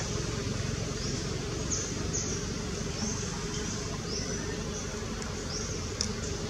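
Forest ambience: short, high chirps that rise in pitch repeat about once a second over a steady low rumble, with a couple of clicks near the end.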